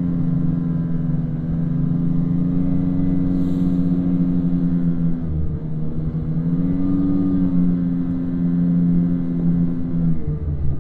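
Snowmobile engine running under steady throttle. It dips briefly about halfway through, picks up again, and eases off near the end.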